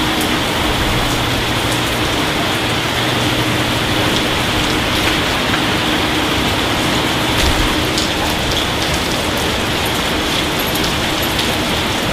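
Rain falling steadily on pavement, an even, constant hiss.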